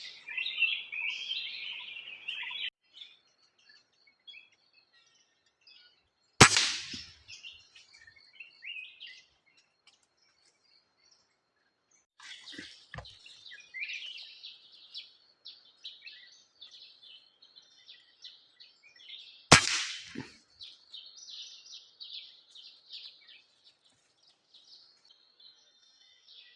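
Birds chirping and calling continually, with two sharp single shots from a PCP air rifle about thirteen seconds apart, the first about six seconds in. A fainter knock falls between them.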